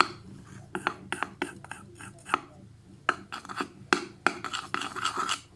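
A teaspoon stirring a thick toothpaste-and-salt mixture in a bowl: irregular clicks and scrapes of the spoon against the bowl, denser scraping near the end.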